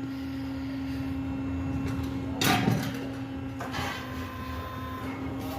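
Tyre changer machine working a new tyre onto a steel rim: a steady hum under rubbing and scraping as the oiled bead slides over the rim edge, loudest for about half a second some two and a half seconds in.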